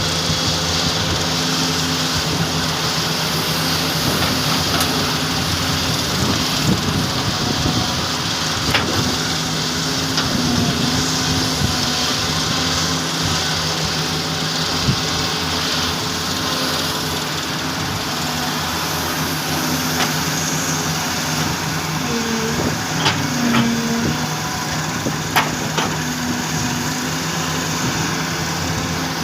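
Doosan excavators' diesel engines running steadily under work, the engine note dipping briefly now and then, with a few short sharp knocks.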